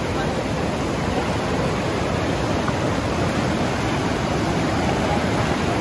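Fast river rapids rushing steadily over rocks, a continuous even roar of white water.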